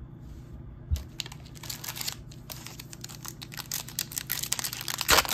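Topps Chrome trading cards being handled: a light thump about a second in, then a run of fast clicks and crinkles as the cards are shuffled and slid against each other, with a louder rustle near the end.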